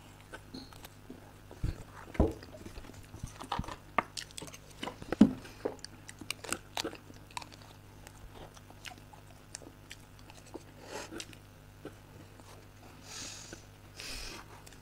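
Chocolate cake with cream being eaten: chewing and wet mouth sounds with many scattered small clicks and soft knocks, and two short breathy hisses near the end.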